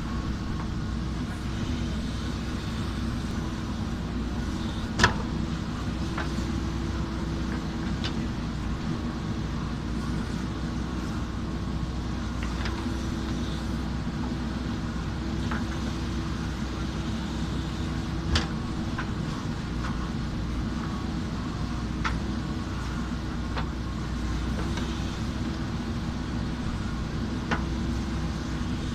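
JCB backhoe loader's diesel engine running steadily under work, with a few sharp clanks, the loudest about five seconds in and another near the middle.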